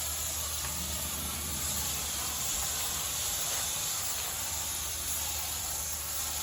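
Sprayer bottle spraying mold and mildew cleaner onto a brick wall: a steady, even hiss, with a low steady hum underneath.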